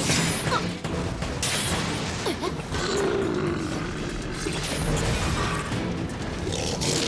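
Battle sound effects, with crashes, booms and metallic clashes, over a dramatic music score. It comes in abruptly out of silence.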